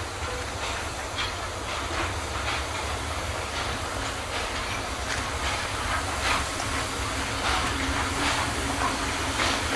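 Steam locomotive working as it approaches, its exhaust chuffing in short beats over a steady hiss of steam, growing louder toward the end.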